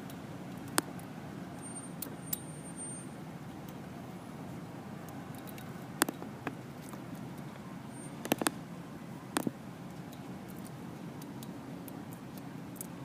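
Lock picks working a vintage brass V7 245 padlock, giving a few scattered sharp metallic clicks, including a quick cluster of them around two-thirds of the way in, over a steady low background rumble.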